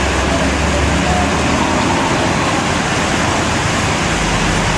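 Heavy rain falling in a steady, dense hiss, mixed with traffic on the flooded road. A low rumble fades early on and comes back about four seconds in.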